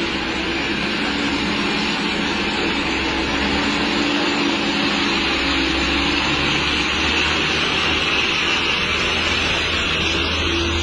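Light dump truck's engine running steadily as the truck drives slowly past, with a steady hiss over it.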